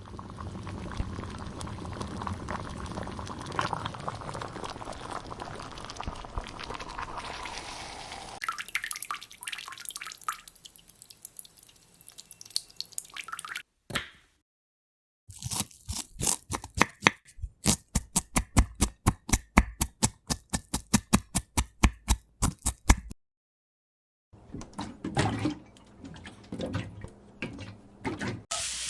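Tap water running as vegetables are rinsed, then, after a pause, a knife chopping quickly on a cutting board, about three to four cuts a second for several seconds.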